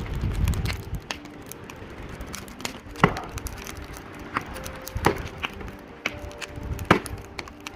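Axe chopping into wood: three sharp strikes about two seconds apart, with a low rumble in the first second.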